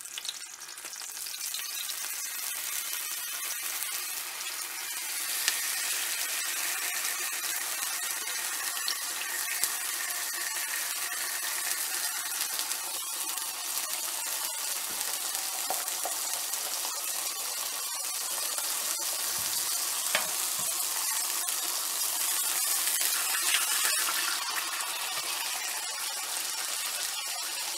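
Slices of turkey bacon frying in oil in a cast-iron skillet: a steady sizzle that grows louder about five seconds in, as more slices go into the pan.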